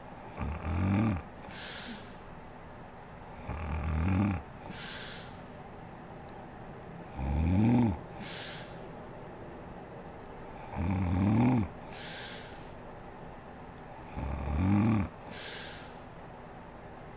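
A sleeping woman snoring loudly, five snores at about three-and-a-half-second intervals, each rising slightly in pitch and followed by a fainter hissing out-breath.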